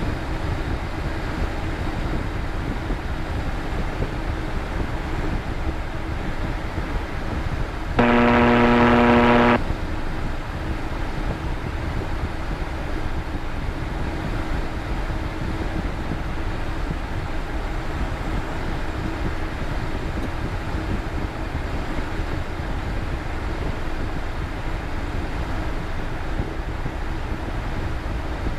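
Cabin noise of a Cessna Citation Bravo taxiing, its twin Pratt & Whitney PW530A turbofans at idle: a steady rush with a faint steady hum. About eight seconds in, a loud buzzing tone sounds for about a second and a half.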